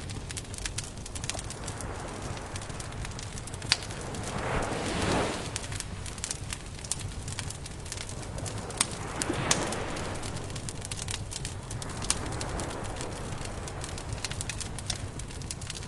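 Wood campfire crackling with frequent sharp pops, and twice a soft swell of surf washing in, about four seconds in and again near the middle.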